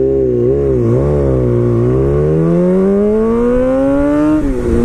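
Sport motorcycle engine heard from the rider's seat: the revs waver as the throttle is worked coming out of a turn, then climb steadily under acceleration and drop sharply near the end at an upshift.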